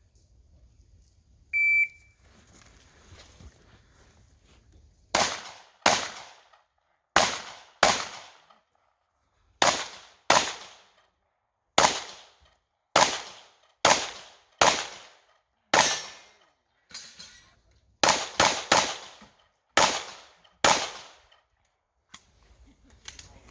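A shot timer's short start beep about 1.7 s in, then a string of about sixteen pistol shots fired at a steady pace, many in quick pairs, each with a short ringing tail.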